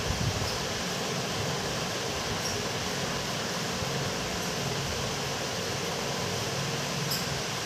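Steady, even hiss with a low hum underneath, like a fan running, and a few faint ticks.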